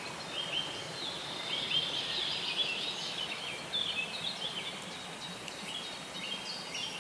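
Several birds chirping and singing in short, quick whistled notes over a steady outdoor background hiss.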